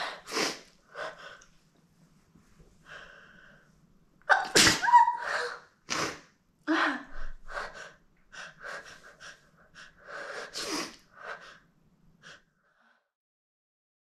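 A young woman's repeated wet sneezes, some held back with a finger pressed under her nose so they come out stifled. The loudest comes about four and a half seconds in.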